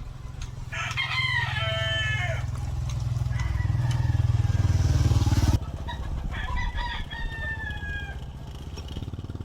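A rooster crows twice, once about a second in and again about two-thirds of the way through. Under the first crow, a machine runs with a rapid low rhythm, growing louder until it stops abruptly just past halfway.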